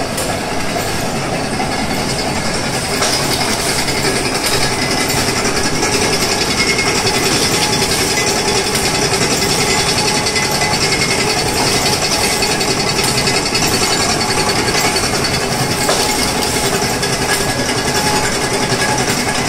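INCA60 automatic vacuum packaging machine with CVA 20 vacuum module running, a steady, dense mechanical clatter with no pauses.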